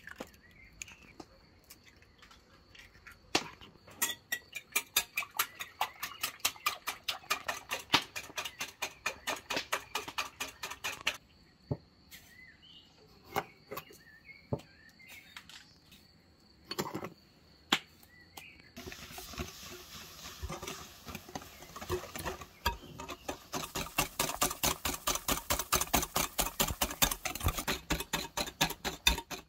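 Kitchen knife chopping on a cutting board in rapid, even strokes, about five a second, with a break near the middle of a few single knocks. A faint steady high tone runs under the quieter stretches.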